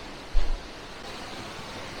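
Steady rushing outdoor noise, with one short low thump about a third of a second in.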